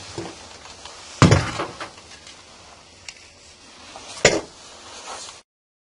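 Two sharp knocks about three seconds apart, the first the louder, as the wooden blank and the bar clamp are handled on the workbench. Then the sound cuts out abruptly.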